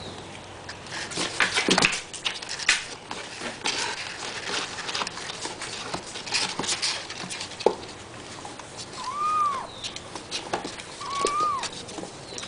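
Kittens scrabbling on the cardboard floor of a box while a dog licks them: a run of soft scratches and clicks. Late on come two short kitten mews, each rising and then falling in pitch.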